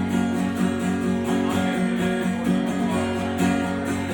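Live band playing an instrumental bar between vocal lines, strummed guitar chords to the fore over a steady rhythmic pulse.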